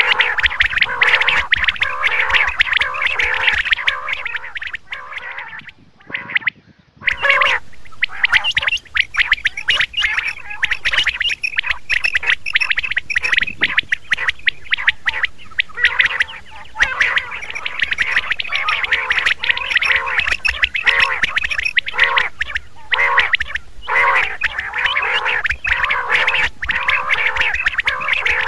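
Quails calling in a rapid, almost unbroken run of short repeated notes, with a brief break about six seconds in.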